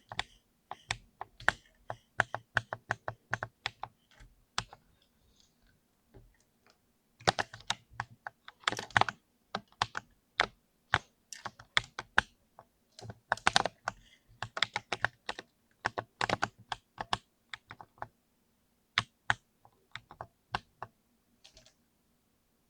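Mechanical keyboard with Cherry MX Speed switches being typed on: bursts of rapid keystroke clicks and clacks, with a short pause about five seconds in and sparser keystrokes toward the end.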